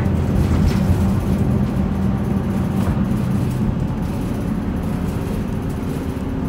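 Running noise inside an Isuzu Erga city bus under way: its four-cylinder turbodiesel engine hums steadily over road and cabin noise.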